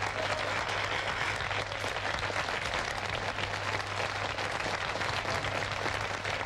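Studio audience applauding steadily: dense clapping from many hands.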